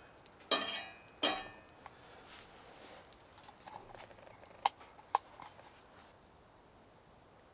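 A utensil scraping and knocking a lump of coconut oil into a Lodge cast iron skillet, twice in quick succession, each stroke with a short metallic ring; a few faint ticks follow.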